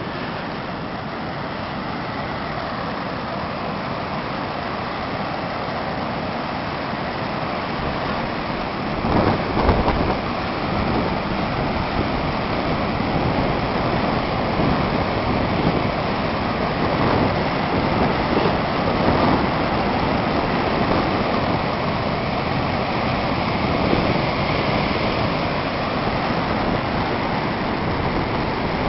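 Wind rushing across the microphone over the steady wash of breaking surf, gusting louder about a third of the way in.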